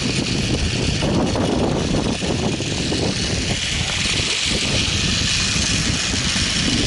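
Zip-line trolley rolling along the steel cable with a steady rumble, mixed with wind rushing over the microphone; the hiss grows louder about three seconds in.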